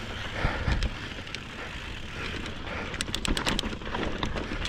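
Kona Process 153 full-suspension mountain bike rolling down a rocky trail: steady tyre and frame noise over the rock. About three seconds in comes a quick run of sharp clicks.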